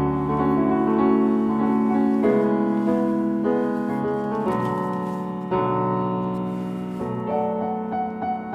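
Solo piano cover of a K-pop song playing as background music. It moves through sustained chords, changing every second or so, and turns to quicker repeated notes near the end.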